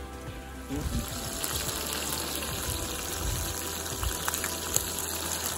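Octopus pieces sizzling in hot oil in a frying pan on a camping stove, the sizzle growing louder about a second in.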